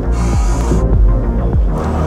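Dark, dramatic background music with deep bass hits that drop in pitch about twice a second, and a hissing whoosh through most of the first second.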